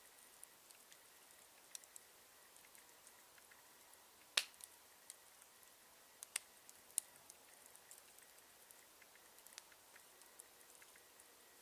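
Campfire crackling: irregular sharp pops and snaps of burning wood, the loudest about four seconds in, with a couple more a few seconds later.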